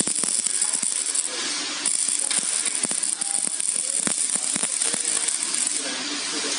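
Metal struts and brackets of a rendering machine's frame clinking and knocking irregularly as they are handled and fitted together, over a steady high hiss.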